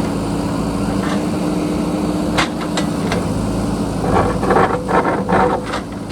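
JCB backhoe loader's diesel engine running steadily. Two sharp knocks come about two and a half seconds in, then a run of clanks and scrapes near the end as the bucket works against rock and earth.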